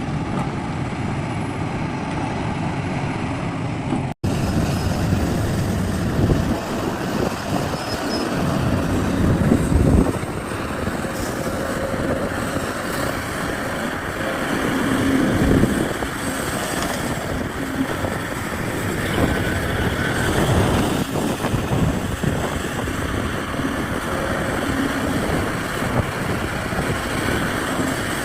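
Heavy diesel machinery running: an excavator and dump truck engines, steady with surges of revving. A brief dropout about four seconds in.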